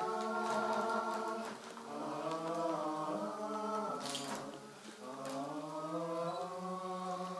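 Voices singing a slow song in long drawn-out phrases, three phrases with short breaths between them.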